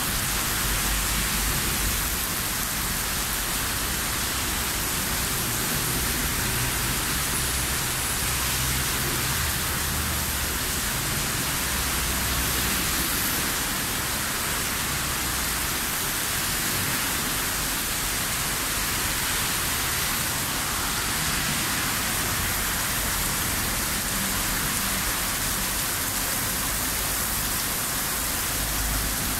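Heavy thunderstorm rain pouring onto a city street: a steady, dense hiss of rain that does not let up, with a low rumble underneath at times.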